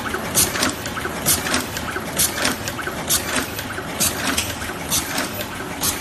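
Automatic double-ended wire crimping machine running: sharp clicks of its crimping and cutting strokes repeat about once a second, often two close together, over a steady machine hum.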